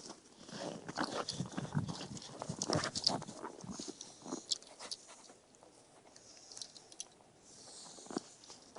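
A Dogo Argentino close by, with irregular crunching and rustling, busiest in the first three seconds and sparser after.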